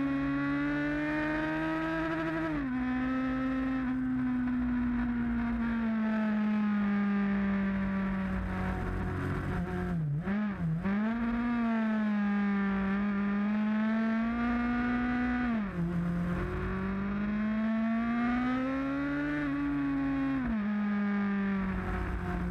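Motorcycle engine running under load, its note climbing slowly with the throttle and dropping suddenly at gear changes about 3 s in, about 16 s in and about 21 s in. Around 10 s in the note dips briefly and picks up again.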